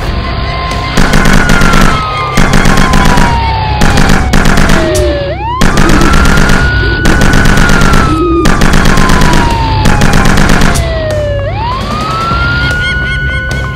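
Police car siren wailing. Its pitch slides slowly down for about four seconds, then swoops quickly back up, twice. Under it runs loud music with a fast pounding beat.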